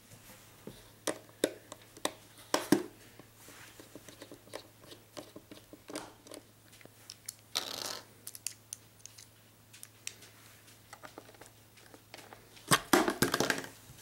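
Small clicks and light scrapes of a screwdriver working the cover screws on the underside of a Panasonic CF-29 Toughbook. A louder run of clatter comes near the end as the RAM compartment's cover plate comes off.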